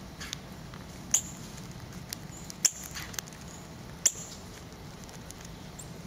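Male northern cardinal cracking black sunflower seeds in its beak: sharp single clicks, irregularly spaced, every second or so.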